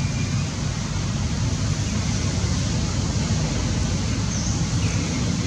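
Steady low rumbling noise with a hiss over it, with no clear single source.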